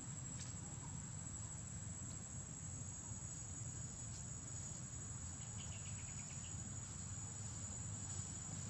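Insects droning outdoors: one steady, high-pitched whine throughout, with a short quick run of chirps about two-thirds of the way in, over a low steady rumble.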